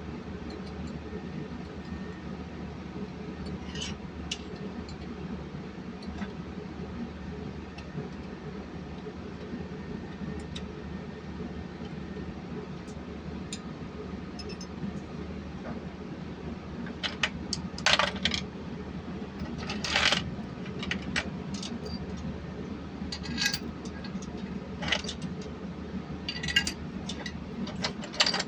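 Steady low machine hum, with scattered sharp metallic clinks and clanks of steel tools and engine parts being handled during the second half.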